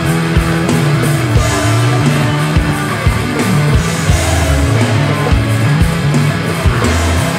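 Rock band playing an instrumental passage: a drum kit hitting on a steady beat under a moving bass line, with dense guitar and band sound above.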